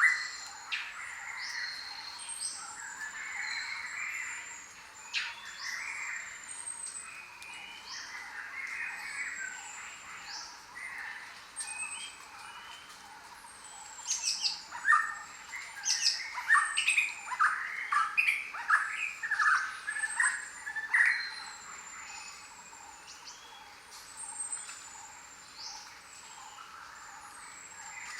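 A chorus of jungle birds: many overlapping chirps and calls, with thin, high down-slurred whistles repeating throughout. A run of louder short calls comes about halfway through.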